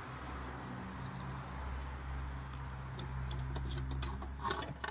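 Hand tools clicking and clinking on metal fittings around the turbo and exhaust manifold of a diesel engine, irregular at first and then a louder cluster near the end, over a steady low hum.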